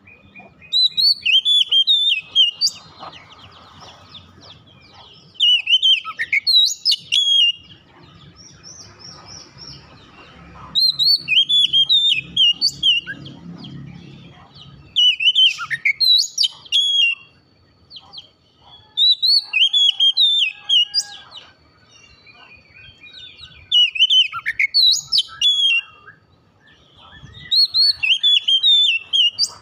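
Oriental magpie-robin (kacer) in full song: a loud phrase of clear, sweet whistled notes about every four to five seconds, seven phrases in all.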